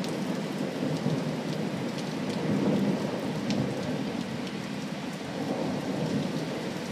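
Heavy rain falling steadily with thunder rumbling through it; the rumble swells about two to three seconds in and then slowly fades. A few sharp drops tap close by.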